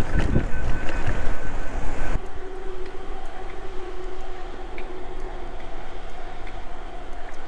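Wind rushing over the microphone of a moving electric bike. After about two seconds this gives way to the steady whine of the bike's hub motor, with a few faint knocks. The rider is certain this is the knocking the wheel made before, and suspects a loose magnet inside the motor with metal filings collected behind its cover.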